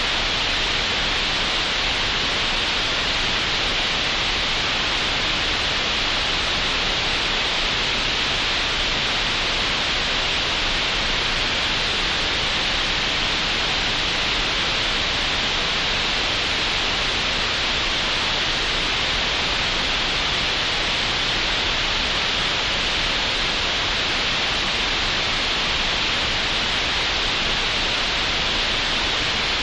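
Synthetic green noise generated in Audacity: a steady, unchanging hiss, brightest in the upper middle of the range.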